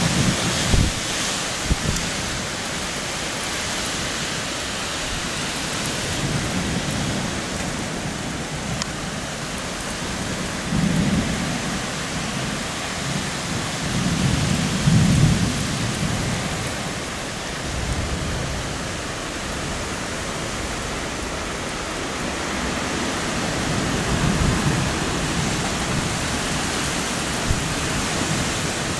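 Heavy rain pouring steadily during a severe thunderstorm, with thunder: a couple of sharp claps in the first two seconds, then deep rolling rumbles around the middle and again near the end.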